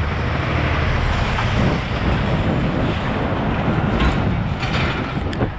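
Wind buffeting the microphone of a camera mounted on a moving bicycle, a steady loud rushing, with a few faint knocks in the second half.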